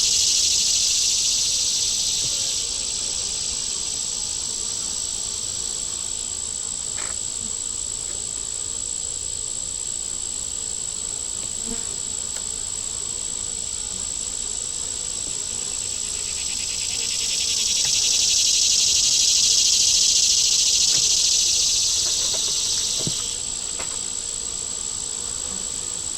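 A high-pitched chorus of insects droning steadily over a constant thin whine. It swells louder at the start and again for several seconds about two-thirds of the way through, with a few faint ticks underneath.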